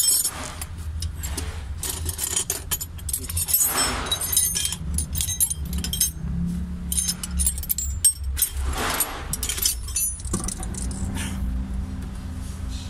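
Wrench and metal parts clinking and rattling against the engine, over a steady low hum; about ten seconds in a second, higher steady hum joins.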